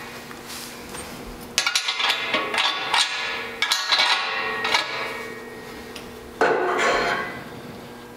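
Steel four-link bars and their mounting hardware clanking against the steel axle brackets as they are fitted by hand: a run of sharp metallic knocks that ring briefly, then a longer clatter a little over six seconds in.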